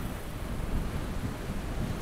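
Wind buffeting a GoPro 9 camera's microphone while cycling: a low, noisy rumble that builds louder toward the end.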